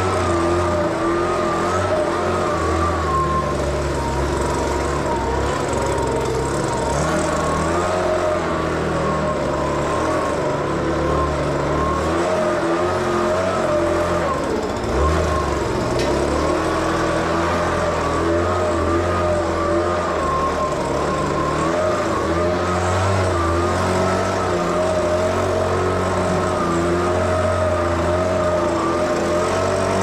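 Hustler Trimstar 52-inch walk-behind mower's engine running steadily under mowing load, its pitch wavering slightly up and down, with a brief knock about halfway through.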